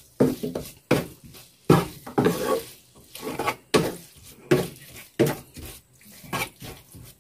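Wooden spatula scraping and knocking against a frying pan while stir-frying sliced bamboo shoots and tempeh, in quick repeated strokes, about one to two a second.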